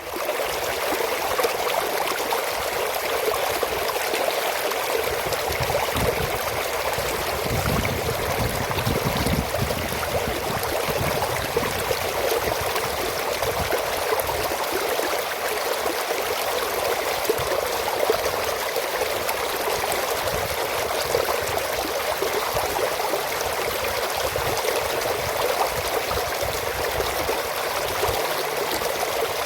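Water rushing steadily through an aqueduct channel: a continuous, even flow noise with no breaks.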